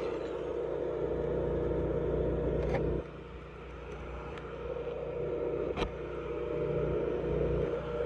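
Stick welding with 7018 rod: the arc crackles and fries over a steady hum. It breaks off sharply about three seconds in and builds back up a couple of seconds later, with a few sharp pops along the way.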